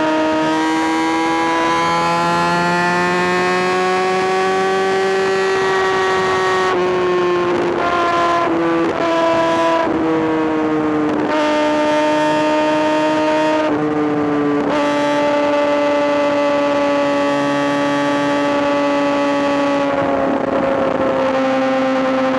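Kawasaki ZX-6R's inline-four engine running loud at high revs, its pitch slowly rising and then easing down. The note breaks and steps briefly several times partway through, then settles lower near the end.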